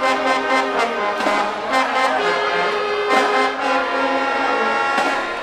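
School marching band playing: trumpets, trombones and baritone horn with clarinets and alto saxophone sound long held chords that shift a few times, over snare and bass drum strokes.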